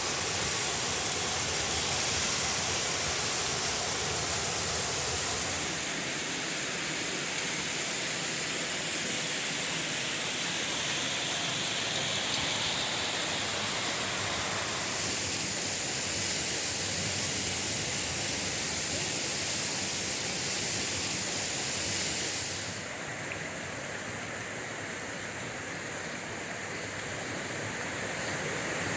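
Steady rushing of falling water from gorge waterfalls. Its tone and loudness shift abruptly a few times, about 6, 15 and 23 seconds in.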